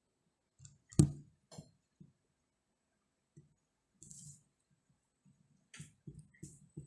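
Scattered clicks and light knocks, the loudest about a second in, with a quick run of several more near the end.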